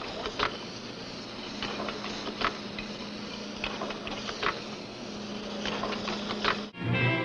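Old film soundtrack noise: a steady hiss and low hum with irregular clicks and pops. Near the end it cuts off suddenly and music begins.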